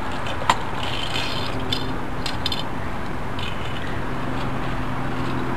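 Small clicks and rattles of a car's rear door handle and armrest fittings being worked by a small child's hands, with one sharp click about half a second in, over a steady low hum.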